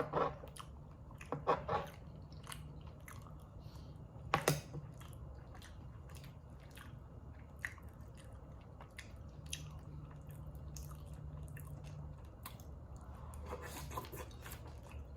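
Close-miked eating: chewing, biting and wet mouth smacks of sausage, rice and cucumber, a run of short clicks with a few louder bites near the start, about a second and a half in and about four and a half seconds in.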